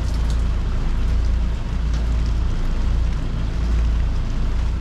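Loud, steady low rumble with an even hiss above it and a few faint ticks, aboard a catamaran in strong wind and rain.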